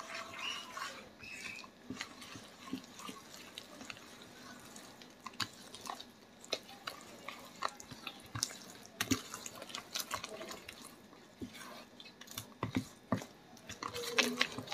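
Wooden spatula stirring a thick, wet egg-and-flour batter in a plastic bowl: faint wet squelching with irregular sharp clicks as the spatula knocks the bowl.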